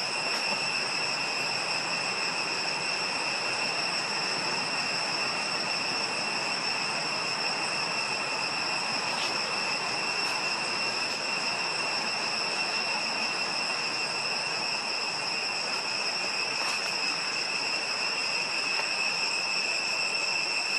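Steady, high-pitched insect drone in tropical forest: a continuous shrill whine at two pitches over an even hiss, unchanging throughout.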